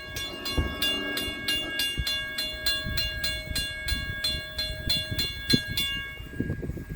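Railroad grade-crossing signal bell ringing in rapid, evenly repeated strokes as the crossing activates for an approaching train, stopping about six seconds in. Low rumbling and knocks sound underneath.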